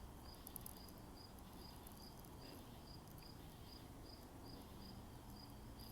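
Faint insect chirping, a high note repeated evenly about twice a second.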